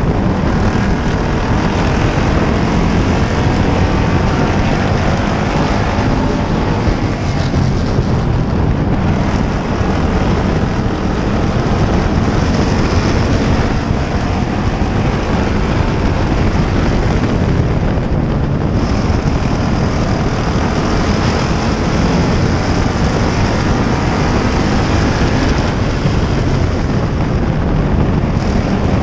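Pure stock race car engine running hard at racing speed, its pitch rising and falling through the turns, along with other race cars in the pack. Heavy wind rushes over the microphone.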